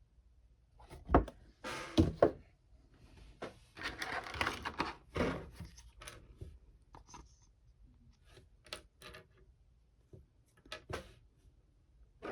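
Plastic action-figure packaging and small plastic parts being handled and rummaged through: a few sharp knocks early on, two longer spells of crinkling and rustling, then scattered light clicks and taps.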